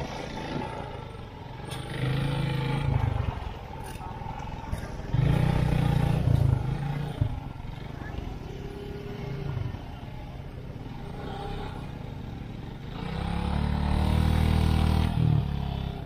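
Motorcycle engine revving in repeated swells as the bike is ridden slowly through a shallow, rocky river, with water splashing around the wheels. The loudest revving comes near the end.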